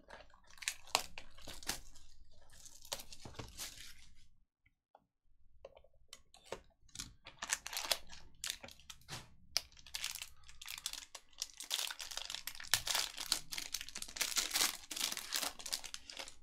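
Sealed wrapping on a pack of Upper Deck hockey trading cards being torn open and crinkled by hand: dense crackling and tearing, with a short pause about four to five seconds in, then more crinkling that grows loudest near the end.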